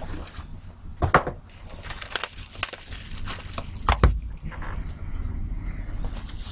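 A Topps trading-card box being handled and moved, with scraping and rustling, a sharp knock about a second in and a heavier thump about four seconds in as the box is set down on the table.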